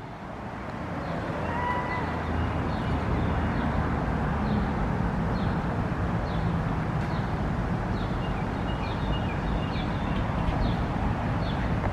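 Steady outdoor background noise that swells in over the first couple of seconds and then holds even, with a few faint high chirps scattered through it.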